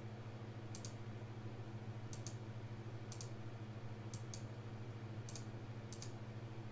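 Six or seven sharp, separate clicks, roughly one a second, over a steady low hum.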